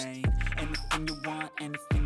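Background music with a steady beat and deep bass notes that slide down in pitch, once near the start and again near the end.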